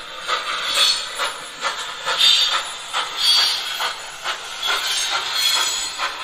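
Gauge 1 model of a Prussian T3 (class 89) steam tank locomotive running under its ESU LokSound 5 sound decoder: an even beat of steam chuffs, about two to three a second, over a steady hiss, played from the model's onboard speaker.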